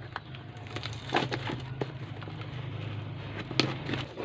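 Handling noises of a package being opened: a few sharp knocks and scrapes with some rustling, over a steady low hum.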